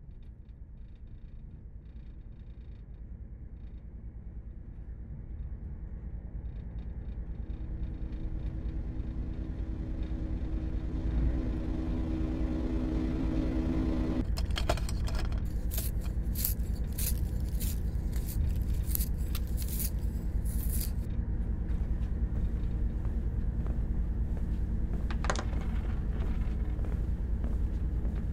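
Designed soundtrack: a low rumbling drone that swells louder over the first half, with a steady hum that stops sharply about halfway through. A run of sharp crackling clicks follows over the rumble, with one more near the end.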